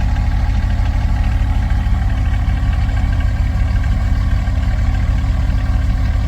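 A 1976 Dodge D200 pickup's engine idling steadily, running again after the fuel tank was cleaned and a new sending unit fitted.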